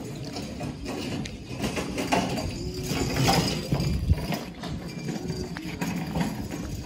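Footsteps on a paved street and rustling, knocking handling noise from a handheld camera while walking, over a low rumble.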